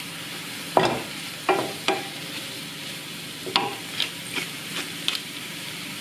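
Sliced champignon mushrooms and onion sizzling steadily in a frying pan, stirred with a wooden spatula that knocks and scrapes against the pan several times.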